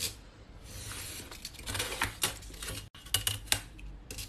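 A craft knife drawn along a metal ruler, cutting through printed paper on a cutting mat, with scratchy strokes and sharp clicks and clinks from the metal ruler being set down and moved.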